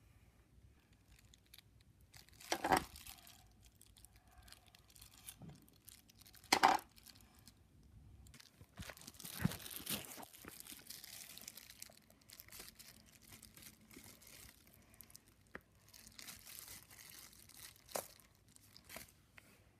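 Thin plastic bag crinkling and rustling as it is handled, after two sharp knocks in the first seven seconds.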